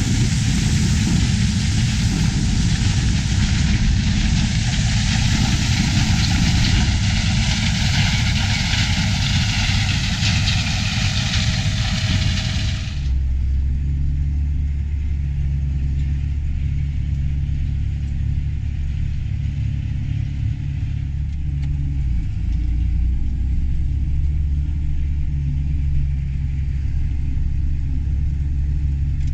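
Combine harvester running: a loud, full rushing noise that cuts off abruptly about thirteen seconds in, leaving a steady low engine hum.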